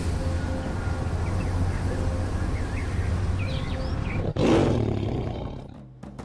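Birds chirping over a steady low hum, then about four seconds in a sudden loud animal roar that fades over a second or two.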